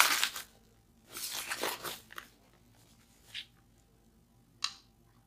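White protective wrapping rustling and crinkling in a few short bursts as it is pulled off the clear plastic globe of a light stick, then a single sharp click near the end.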